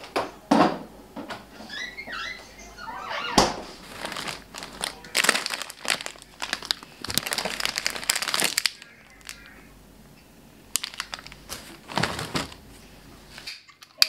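Plastic food packaging crinkling and rustling as it is handled, in irregular bursts with a few sharp knocks, and a short lull a little past the middle.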